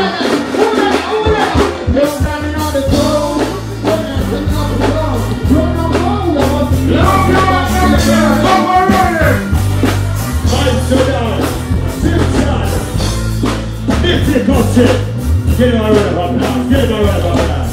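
Live reggae stage performance: a man singing into a microphone over a band's strong, steady bass line and drums, played loud through the stage PA.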